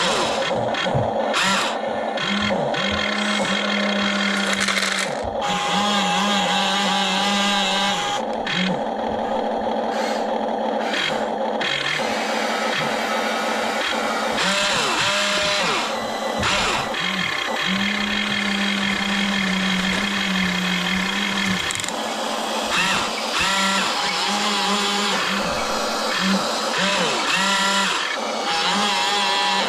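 Electric motors of a radio-controlled toy excavator whining in on-and-off spurts as the arm, bucket and tracks are worked, the pitch stepping slightly with each movement. Lego bricks clatter and click throughout.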